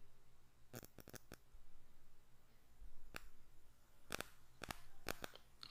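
Faint, sharp clicks from computer use over quiet room tone: a quick run of five about a second in, then scattered single clicks and a few more in quick succession near the end.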